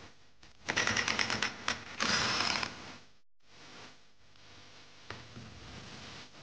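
Rapid mechanical clicking, then a short dense rattle, as a wrench spins the clutch hub nut off a Yamaha YZ250 two-stroke's clutch while the basket is held by locking pliers. After that comes faint handling of the metal clutch parts, with a light clink.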